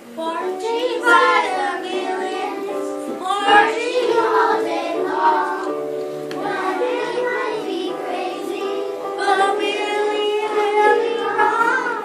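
Group of children singing a song together over instrumental accompaniment, the singing starting right at the beginning.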